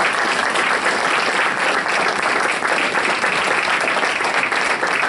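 Audience applauding: many people clapping hands together in a steady, dense patter.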